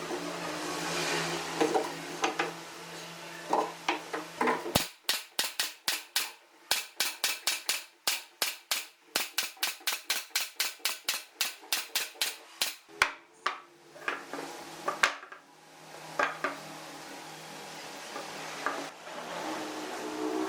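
Fast, even hammer strikes on wood, about four a second, running for roughly eight seconds, then a few scattered knocks. A steady low hum is heard before the hammering starts and again near the end.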